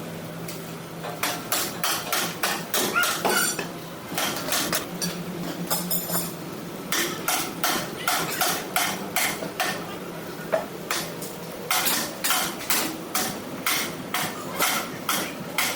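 Repeated hammer strikes on metal in runs of about two to three blows a second, with short pauses between the runs, over a faint low steady hum.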